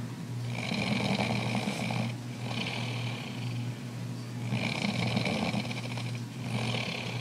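A man snoring heavily, one long snore after another about every two seconds, over a steady low hum.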